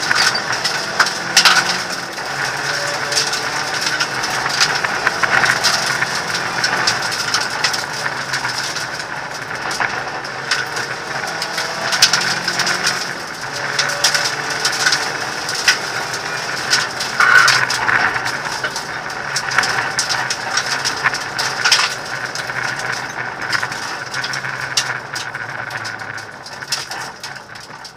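Inside a Hyundai Accent rally car driven hard on gravel: the engine runs under load, its revs changing with the gear changes, while loose gravel clatters against the body and the cabin rattles throughout.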